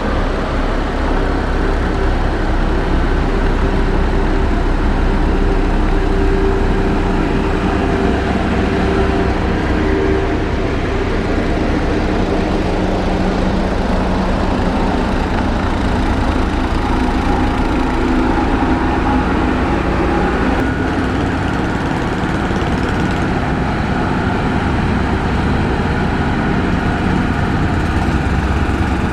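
Heavy diesel engine of a motor grader running steadily, its pitch shifting a few times as it works.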